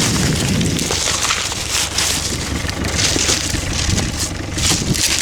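Dry maize stubble and leaves crunching in irregular bursts, about one a second.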